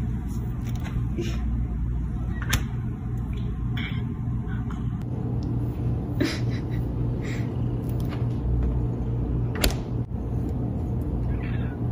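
Steady low hum of an open refrigerator, with a few sharp knocks as a cat paws at the fridge door.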